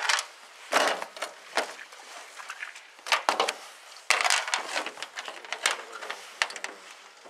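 Handling noises as pike are moved and measured on an upturned boat hull: irregular rustling scrapes and light knocks, with a longer scraping stretch a little past the middle.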